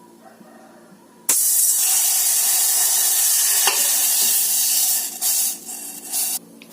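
Water poured from a glass into a cooking pot: a sudden steady hiss that breaks into uneven surges near the end and cuts off abruptly.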